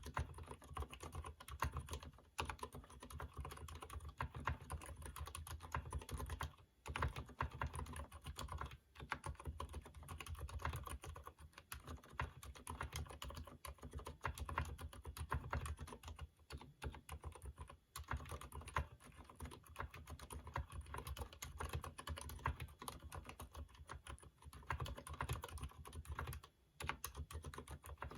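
Rapid, continuous typing on a Durgod mechanical keyboard with Cherry MX Silent Red switches, still unlubricated: a dense run of muted, dampened keystrokes, broken by a few short pauses.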